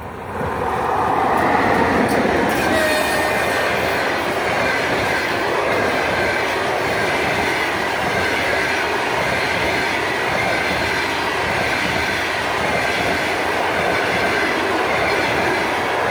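EP1 electric locomotive and a long passenger train running past at close range. The noise swells sharply in the first second or two as the locomotive arrives, then the coaches roll by with loud, steady wheel-on-rail noise.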